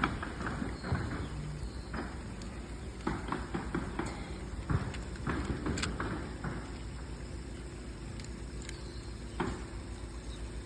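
Scattered clicks, knocks and rustles of close handling, busiest in the first several seconds and sparser near the end, over a steady low hum.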